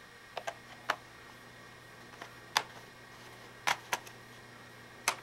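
Plastic snap clips on a laptop's bottom cover clicking and cracking free as fingers pry along its edge, a series of sharp irregular clicks, the loudest about halfway through.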